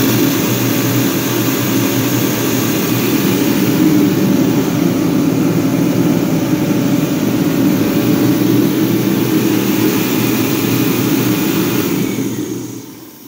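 Multi-fuel (kerosene/diesel) torpedo heater running with its burner lit: a loud, steady rush of fan and flame that dies down near the end. The burner firing shows the repair has worked: a patched hole in the air line and debris cleared from the nozzle.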